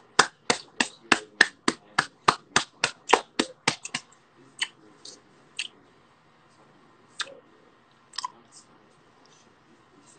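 One person clapping hands quickly and evenly, about three claps a second for roughly four seconds, then a few scattered claps.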